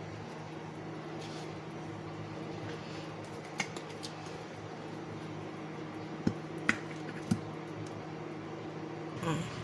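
A steady low hum with a few sharp, light clicks and taps spread through the middle, and a short muffled sound near the end.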